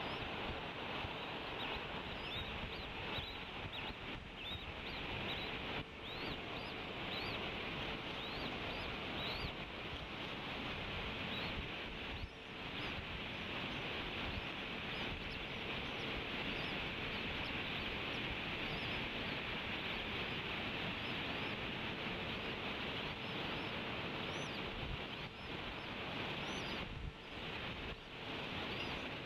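Steady outdoor hiss with many short, high chirping bird calls, thickest in the first ten seconds and again near the end.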